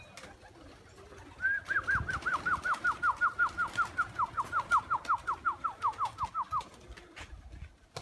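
A bird calling: a rapid run of about twenty-five short, clear, falling whistles, about five a second, starting a second and a half in and lasting about five seconds, drifting slowly lower in pitch.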